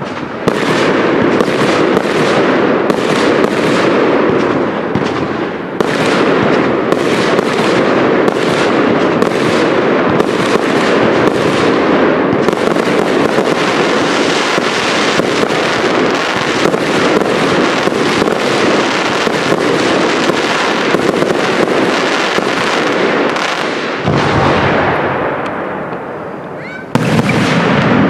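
Aerial fireworks display: a dense, almost continuous run of shell bursts and crackling. It quietens about 24 seconds in, then a sudden loud bang comes about a second before the end.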